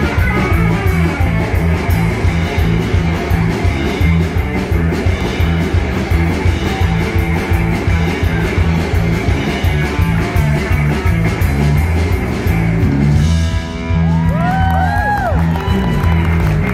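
Live country-rock band playing loudly: electric guitar over bass and drums with a steady repeating beat. About two seconds before the end, a lead line slides up in pitch and back down a few times.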